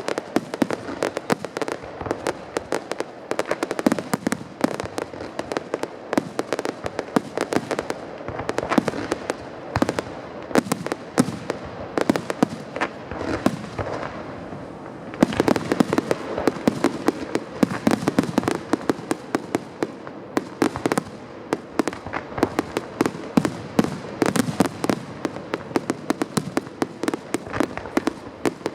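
Aerial fireworks finale: a dense, rapid barrage of shell bursts and crackling reports. The barrage thins for a moment about halfway through, then comes back louder.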